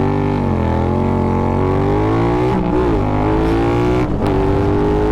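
Triumph Thruxton R parallel-twin engine through open Meerkat race mufflers, pulling hard. The revs dip just after the start, then climb steadily, broken twice by brief drops as it shifts up a gear.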